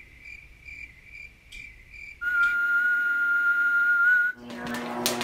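Faint cricket-like chirping, about two to three chirps a second. About two seconds in it gives way to a loud, steady test-tone beep held for about two seconds, the off-air tone that goes with colour bars. It rises slightly in pitch just before it cuts off, and music starts near the end.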